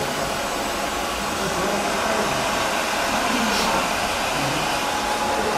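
Hair dryer running steadily with an even blowing hiss, cutting off suddenly at the end.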